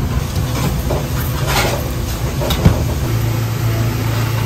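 Steady low rumble of commercial kitchen equipment, with light clinks of stainless-steel noodle bowls being handled and one sharp knock about two and a half seconds in.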